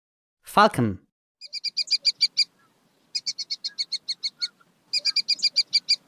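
Falcon calling: three quick series of sharp, high 'kek-kek-kek' notes, about nine a second, each series lasting a second or so with short pauses between.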